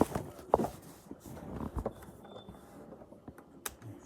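Handling noise from unpacking a keyboard: a few scattered knocks and clicks over a faint rustle, the loudest knock about half a second in.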